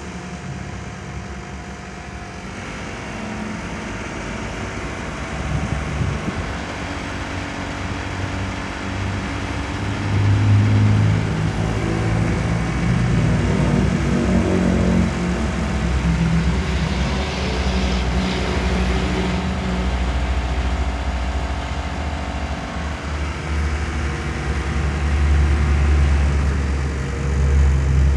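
Outdoor unit of a Polytron split air conditioner running: a steady low hum from the compressor under the fan's whir, with tones that step and shift in pitch midway through, growing slightly louder.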